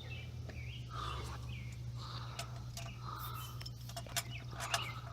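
Birds chirping and calling intermittently, with a few short ticks, over a steady low background hum.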